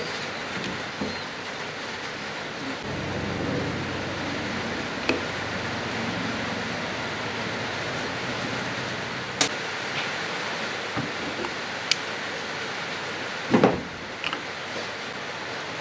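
Toyota 1UZ-FE VVTi drive-by-wire throttle body side cover being taken off. A low whir starts about three seconds in and lasts about five seconds, and small metal clicks of the tools and parts follow. A louder knock comes near the end, over a steady hiss.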